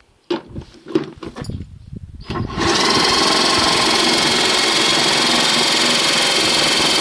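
A few knocks and clicks, then about two and a half seconds in an electric motor, a washing-machine motor rewound from two poles to six, starts abruptly and runs steadily with an even whine.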